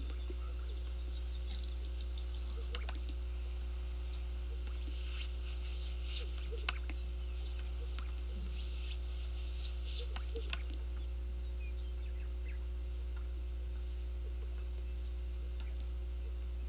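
A steady low hum from a hall's sound system, with faint scattered clicks and short high chirps over it from a film of displaying greater sage-grouse on a lek.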